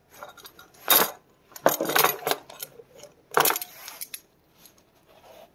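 A thick leather belt being fed through trouser belt loops, its metal buckle hardware clinking and rattling in three short bursts with leather rubbing between.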